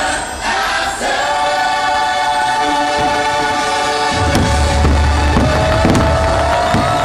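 Fireworks-show soundtrack over loudspeakers: a choir sings long held notes with orchestral music. A deep low rumble joins at about four seconds as the fireworks burst.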